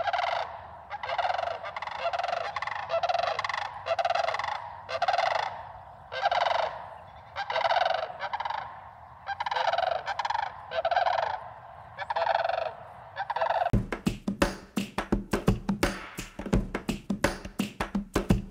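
Sandhill cranes calling in flight, about twenty calls, one or two a second, some overlapping. About fourteen seconds in, music with guitar and percussion cuts in and replaces them.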